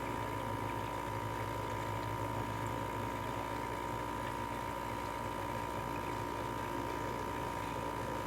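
LG 6,000 BTU window air conditioner running steadily, with a constant hum and a steady high-pitched tone over the fan noise.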